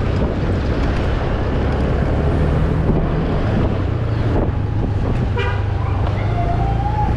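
Steady low engine hum and wind rush from a Honda motor scooter riding in town traffic. A short vehicle horn toot sounds about five and a half seconds in, followed near the end by a second, longer tone that glides slightly.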